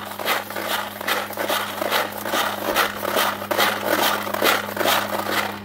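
Hand-held Golden Retriever drywasher being shaken back and forth, its load of gravel and sand rattling over the riffles at about three to four strokes a second. Bearing weights inside give each stroke a jarring kick to drop the gold. The shaking stops at the very end.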